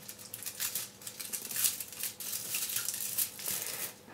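Aluminium foil being folded and pressed over by hand, crinkling in a string of short, irregular crackles.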